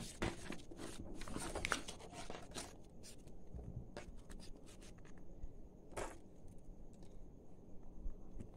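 Paper and plastic being handled, a rustling cluster in the first couple of seconds, then a pen scratching faintly on paper as it traces inside a plastic spirograph gear, with two light clicks along the way.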